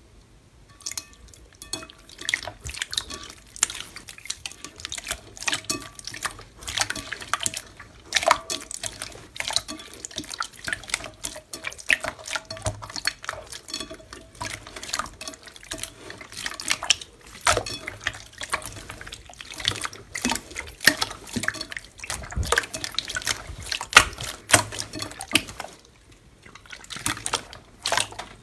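Hands squishing and swishing clear 'fake water' slime in a glass bowl: a steady stream of irregular wet clicks, pops and squelches.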